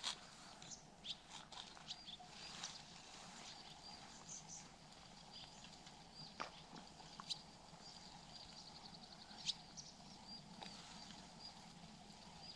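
Spinning reel being cranked on a lure retrieve: faint scattered clicks and light ticks, with a short run of rapid, even ticking about halfway through.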